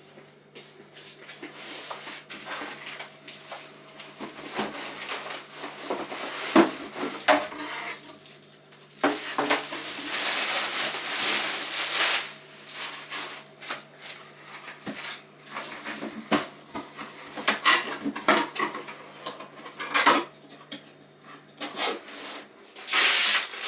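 Irregular knocks, clinks and rubbing from a stainless steel filter coffee machine and its parts being handled, with a longer stretch of rubbing about nine to twelve seconds in.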